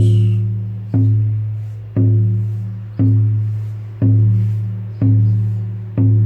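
Lakota healing drum beaten at a slow, steady pulse of about one stroke a second. Each stroke is a deep, booming tone that rings and fades before the next.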